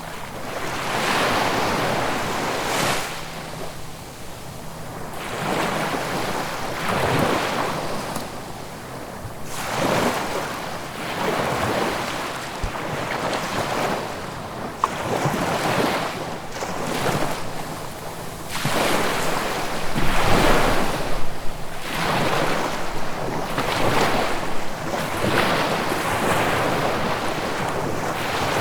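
Sea waves breaking and washing in, swelling and falling back every two to three seconds, with the loudest surge about two-thirds of the way through.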